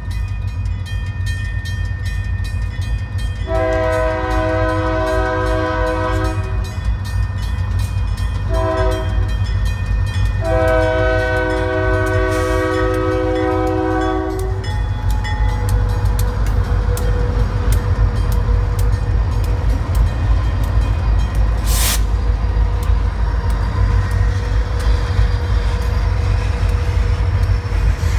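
Diesel freight locomotive's multi-note air horn sounding the grade-crossing pattern: the tail of a long blast, then a long, a short and a long blast. The locomotive then passes close with its engine running loud and the train's wheels rumbling on the rails, with one brief sharp noise about three quarters of the way through.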